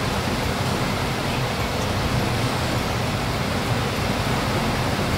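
Steady rushing background noise with a low hum underneath, unchanging throughout, with no distinct knocks or clicks.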